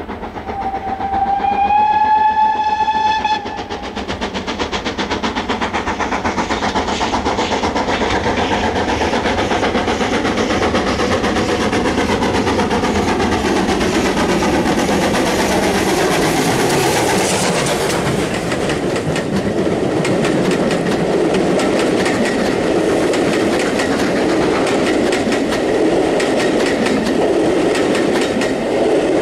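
Steam locomotive GWR 'Saint' No. 2999 "Lady of Legend" gives one whistle about a second in, lasting about two seconds and rising slightly in pitch. It then approaches and passes hauling a passenger train, its running noise growing to a peak as it goes by, followed by the coaches rolling past.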